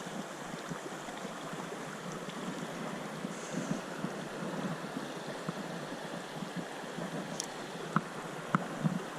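Creek water running steadily, with a few light knocks near the end.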